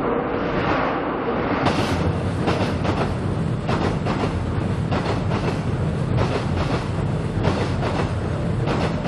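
Seoul Subway Line 7 train running over Cheongdam Bridge: a steady rumble, joined about two seconds in by a clickety-clack of wheels passing over rail joints that repeats through the rest.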